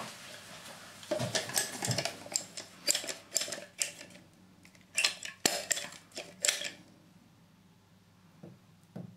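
Irregular clicks and clatters of hard plastic being handled, as a sealant cartridge and the plastic waste fitting are knocked about against the bath; the clatter stops about seven seconds in.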